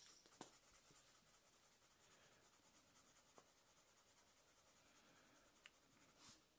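Very faint scratching of a felt-tip marker nib stroking back and forth across paper, shading in a tree trunk, with a few light ticks and one louder stroke near the end.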